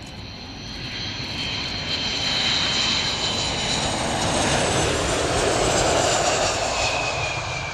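Boeing KC-135R Stratotanker's four CFM F108 turbofan engines as the jet passes by, growing louder to a peak about six seconds in and then fading. A high turbofan whine slides slowly down in pitch as it goes by.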